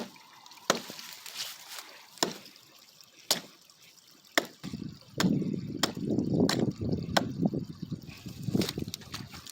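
A hammer striking an old tree trunk: sharp knocks about once a second, with a rough scraping, rustling noise joining from about halfway through.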